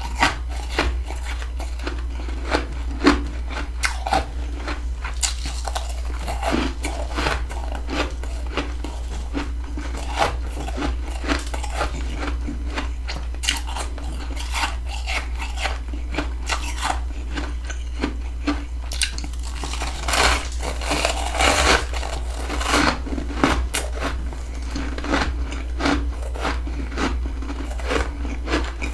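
Close-up crunching bites and chewing of freezer frost, a steady run of crisp crunches that gets busier about two-thirds of the way through. A steady low hum runs underneath.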